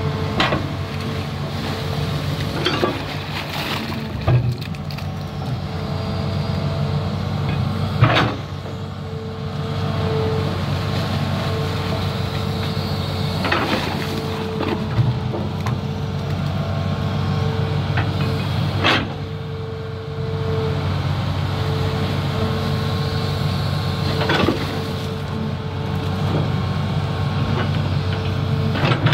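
Hitachi Zaxis 210F amphibious excavator's diesel engine running under load, with its hydraulics whining as the bucket digs and swings riverbank mud. Sharp knocks of the bucket and boom working come every few seconds.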